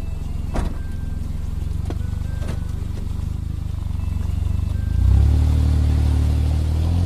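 A 4WD's engine running through a Yoshimura aftermarket muffler, with a deep, steady exhaust note that gets louder from about five seconds in.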